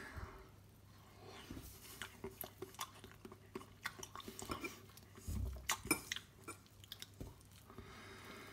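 A person chewing a mouthful of soft microwaved omelette, with scattered light clicks of a metal knife and fork against a plate.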